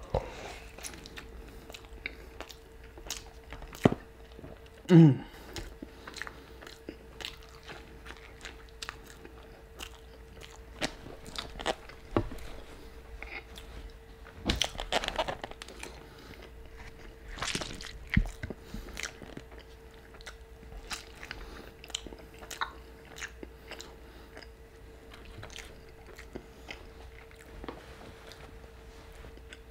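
Close-miked eating: a bite into a burrito, then wet chewing with many small mouth clicks and crunches, plus a few bursts of paper wrapper rustling. A short falling pitched sound about five seconds in is the loudest moment, and a faint steady hum sits underneath.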